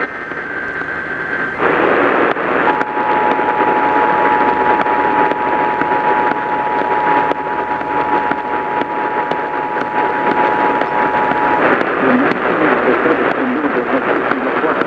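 Emergency Alert System two-tone attention signal, two steady tones sounding together for about nine seconds, heard through heavy radio static. The signal announces an emergency alert message; the static hiss runs on after the tones stop.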